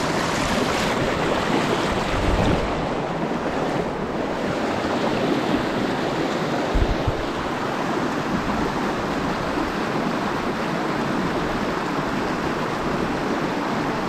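Mountain creek water rushing steadily, with two dull low bumps about two and a half and seven seconds in.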